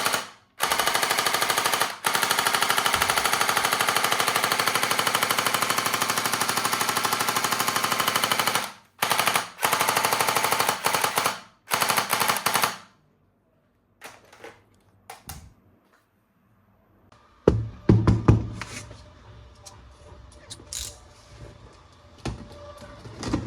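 A toy gun's electronic rapid-fire sound effect, an unbroken machine-gun rattle held for most of the first half with a few short breaks, then cut off. After a pause come scattered plastic clicks, knocks and rattles from handling the toy.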